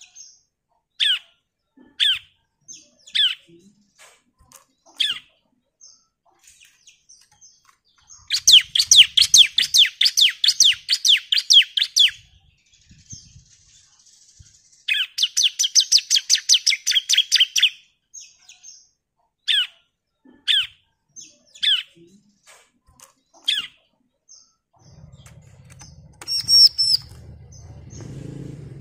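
Bar-winged prinia (ciblek) calling: sharp single chip notes about a second apart, broken by two long rapid runs of repeated notes, each lasting about three to four seconds, a third of the way and halfway through. A faint low rustle sits under the last few calls.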